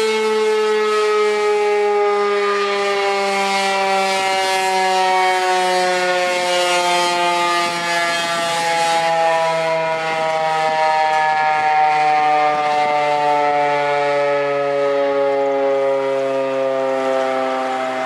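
Darley STH-10 electromechanical tornado siren sounding a loud, steady wail whose pitch sinks slowly and evenly.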